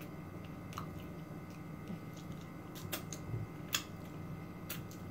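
Close-miked mouth sounds of eating: a few sharp lip smacks and mouth clicks, roughly a second apart, over a steady low electrical hum.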